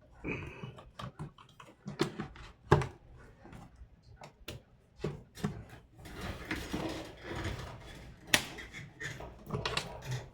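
Irregular clicks and knocks from a laptop's casing and parts being handled and taken apart, with a stretch of scraping partway through; the two sharpest knocks come about three seconds in and again near the end.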